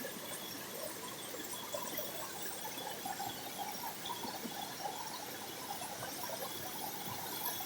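Waterfall, its water rushing and splashing steadily.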